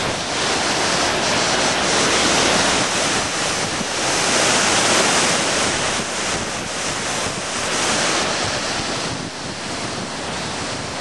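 Waterfall pouring close by: a loud, steady rush of falling water, with wind noise from spray and gusts on the microphone.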